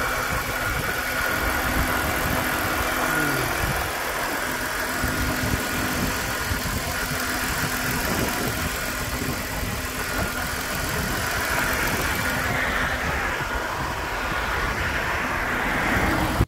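BMW E46 320Ci's 2.2-litre straight-six, fitted with an open cone air filter, idling steadily with the bonnet open.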